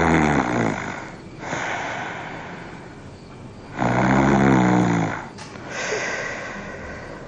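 A man snoring heavily in his sleep: two long, loud snores about four seconds apart, each followed by a breathy out-breath.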